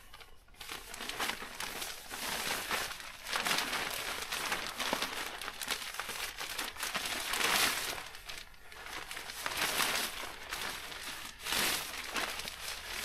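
Plastic checkered bench cover crinkling and rustling as it is unfolded and handled, in uneven bursts, loudest about seven and a half seconds in.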